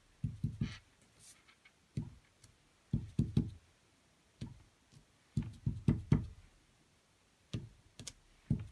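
Clear acrylic stamp block tapped down repeatedly onto an ink-soaked baby wipe in a plastic case and pressed onto glossy cardstock on a grid mat: short, dull taps in small clusters of two to four, with pauses between.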